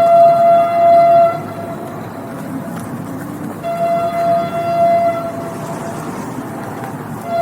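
Train horn blowing steady, single-pitched blasts over the rumble of the running train. The first blast stops about a second and a half in, a second runs from about three and a half to five seconds in, and a third begins right at the end.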